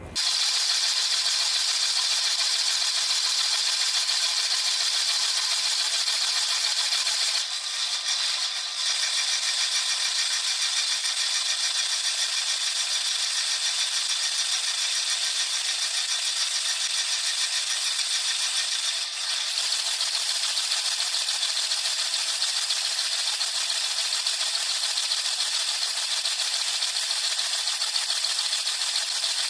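Water jets spraying inside a running dishwasher during the wash cycle, heard from inside the machine: a steady hiss of pelting water. It dips briefly about eight seconds in and again near nineteen seconds.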